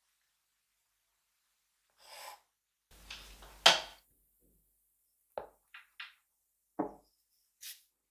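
Scattered handling sounds of drawing tools: a brief scratchy stroke, a longer one about three seconds in ending in a sharp click, then a few light clicks and taps.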